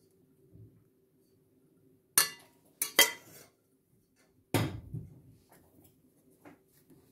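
Stainless steel pot and metal ladle clanking as they are handled and set down: a sharp clank about two seconds in, two more close together a second later, and a heavier clank with a short ringing tail about halfway through.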